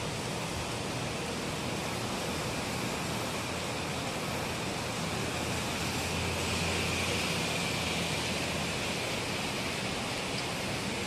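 Steady rain falling, an even hiss with no breaks, with a faint low rumble swelling for a few seconds midway.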